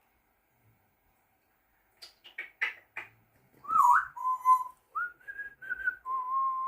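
African grey parrot making a few short clicking calls, then whistling a run of notes: a swooping note, then several short held notes, and a last long steady one.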